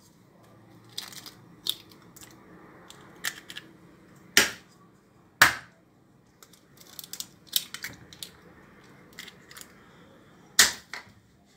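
Hen's eggs being cracked open: sharp taps of eggshell against a hard edge, loudest about four and five seconds in and again near the end, with smaller clicks and crackles of shell being pulled apart in between.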